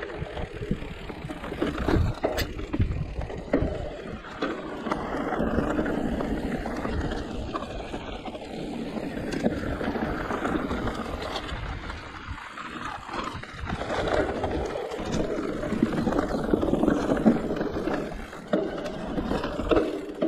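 Giant Reign E+ electric mountain bike riding along a dirt trail: tyres rolling over dirt and grass, with frequent knocks and rattles from the bike over bumps and a low rumble of wind noise.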